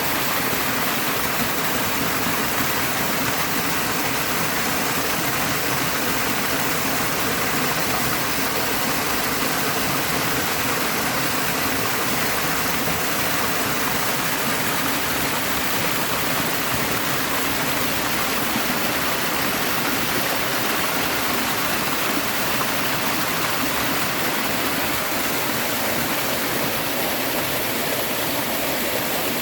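Steady rush of a river and waterfall, an even, unbroken noise of falling and flowing water.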